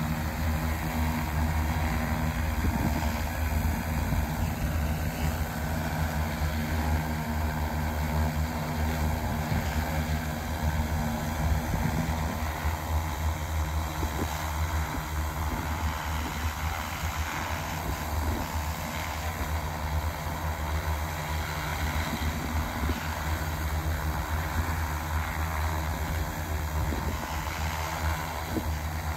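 X1400 industrial multirotor drone hovering, its motors and propellers running with a steady low hum that holds an even pitch and level throughout.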